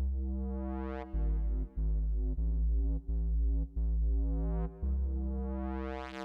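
Hardware synthesizer music: a buzzy sustained synth tone over a deep, steady bass, with a short run of retriggered notes changing about every half second in the middle. The tone grows steadily brighter towards about a second in and again towards the end.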